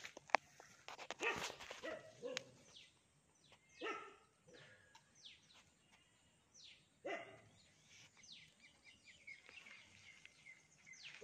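A dog barking a few times, once near the start, about four seconds in and about seven seconds in, with birds chirping short, high, falling calls in between.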